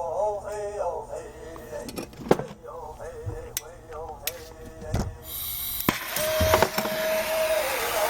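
A few sharp metallic clicks of tools against the silver buckle, then a soldering torch starting about five seconds in and hissing steadily as it heats the sterling silver for silver soldering.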